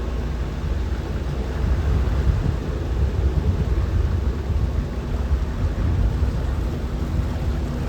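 Wind buffeting the microphone as a steady low rumble, with a faint motor hum underneath.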